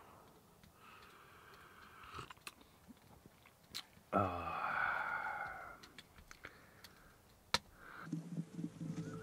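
A man chewing food, with small clicks and crunches. About four seconds in comes a louder pitched sound lasting about a second and a half and falling in pitch, and near the end music begins.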